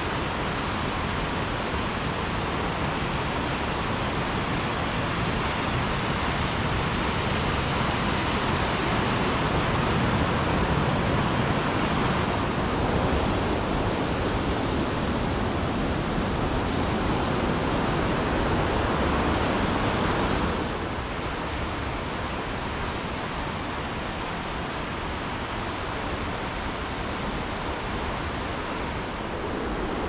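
Mountain creek rushing over rocks: a steady whitewater rush that drops a little in level about two-thirds of the way through.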